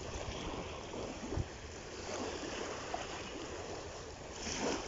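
Small waves washing and breaking on a pebbly shore, a steady rush of water noise that swells a little louder near the end.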